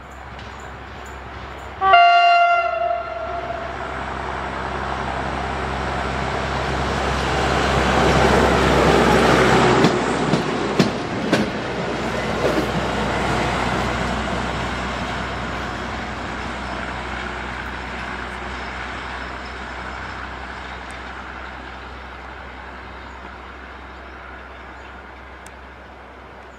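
A rail maintenance draisine (motor track trolley) gives one short horn blast about two seconds in. Its engine and wheels then grow louder as it passes, with a few sharp clicks of the wheels over rail joints, and fade slowly as it runs away down the line.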